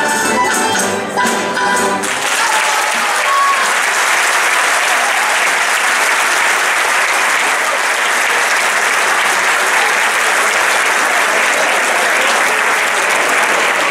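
Music from a large guitar ensemble ends about two seconds in, and a hall audience breaks into steady applause.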